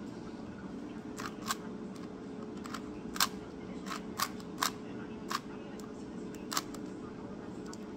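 Plastic 3x3 Rubik's Cube layers clicking as they are turned by hand, about nine sharp clicks at uneven intervals, over a steady low background hum.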